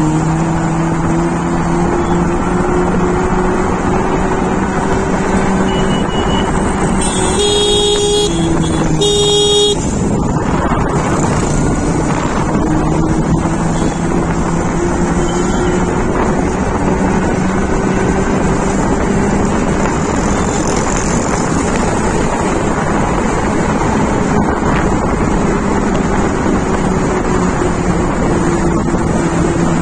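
Revolt RV400 electric motorcycle on the move: a steady hum that drifts slowly up and down in pitch over road and wind noise. A vehicle horn honks twice, about seven and nine seconds in.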